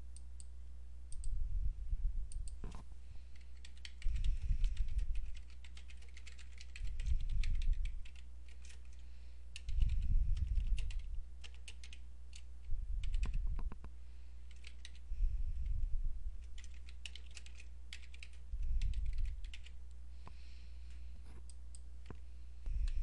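Typing on a computer keyboard: scattered, irregular key clicks. Under it run a steady low hum and a low rumble that swells for about a second every two to three seconds.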